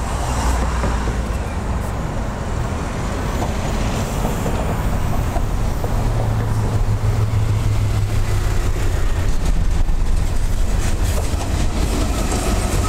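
Norfolk Southern GE ES44AC diesel locomotives approaching with a steady low engine drone that grows louder as they near.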